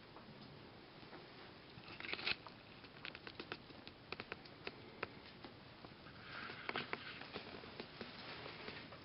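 Sugar gliders scrabbling over each other and nibbling treats: faint scattered small clicks, with a short rustle about two seconds in and a longer one near seven seconds.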